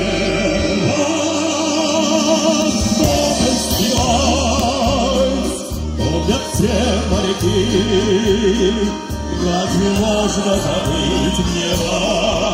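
A choir of navy sailors sings into microphones over an amplified backing track with a steady bass line. The held notes waver with vibrato.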